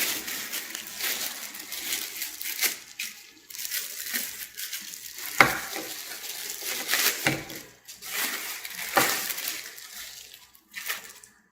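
Rustling and crinkling of packaging as small shower head parts are handled and unpacked, with a few sharp clicks and taps along the way.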